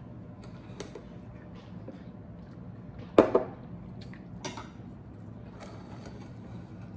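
Chopsticks and a spoon clinking against ceramic bowls as noodle soup is eaten, in scattered light taps, with one sharp ringing clink about three seconds in.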